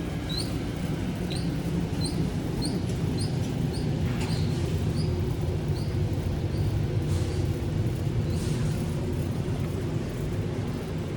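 A bird chirping indoors, short high chirps repeated about twice a second for the first six seconds, then only a few more, over a steady low rumble that is the loudest sound.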